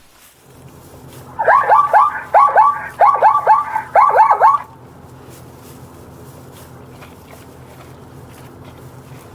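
An animal giving a quick run of about ten short yelping calls, each sharply falling in pitch, in three or four clusters, then stopping; a steady low hum continues underneath.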